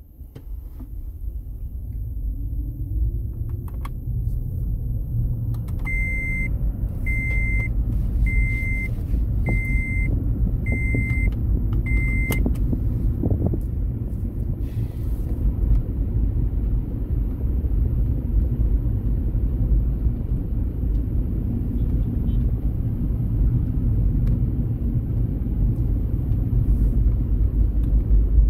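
Steady low road and engine rumble heard inside a moving car's cabin. From about six seconds in, six short, high electronic beeps sound at even intervals of a little over a second.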